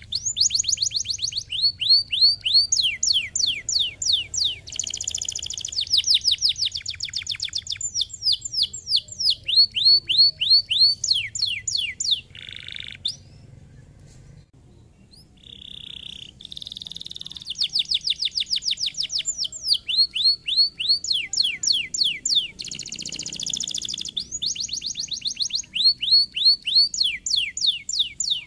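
Domestic canary singing in fast trills: rapid series of high, downward-sweeping notes, repeated tours and buzzy rolls, with a brief lull about halfway before the song resumes.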